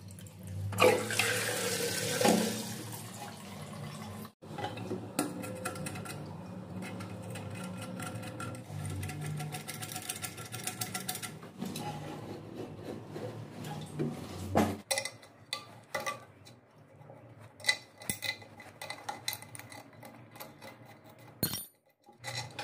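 Water rushes briefly in a toilet cistern about a second in. It is followed by a long run of short clicks and knocks as the plastic and ceramic cistern parts are handled and fitted.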